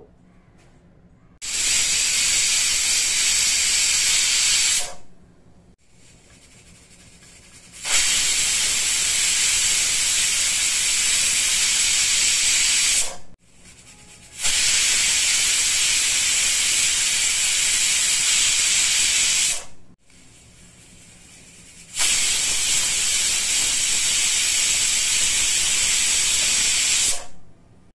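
Stovetop pressure cooker whistling four times, each a loud, steady hiss of steam lasting about four to five seconds, with short quiet gaps between. These are the four whistles counted to time the cooking.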